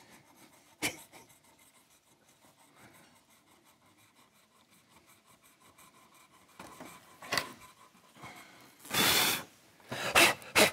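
A coin scratching the coating off a paper lottery scratch card: quick, faint scraping strokes, with a few louder scrapes and a longer rush of noise near the end.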